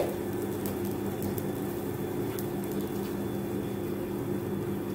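A steady low hum with scattered faint light ticks and crackles: grated coconut being dry-roasted, without oil, in a pan over a low flame.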